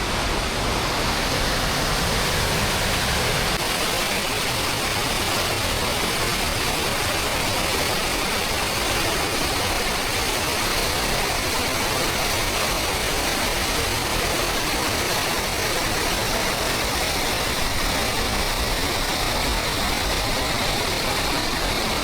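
Steady rush of river water pouring through a single partly open dam gate, an even, unbroken noise.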